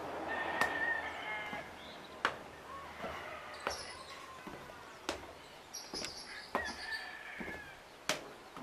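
Slow footsteps on concrete stairs, a sharp step about every second and a half, with bird calls in the background.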